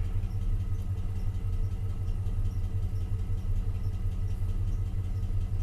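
GMC Sierra Denali pickup's engine idling steadily, an even low rumble.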